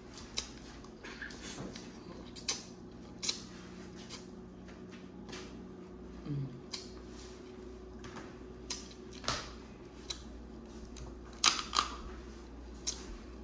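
Eating a Dungeness crab seafood boil: a string of short, sharp clicks and cracks from crab shell being broken and handled, with the loudest pair near the end. A faint steady hum runs underneath.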